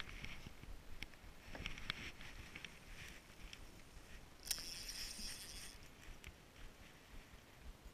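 Faint clicks and rustles from handling a fishing rod and spinning reel, with a brief hiss about four and a half seconds in.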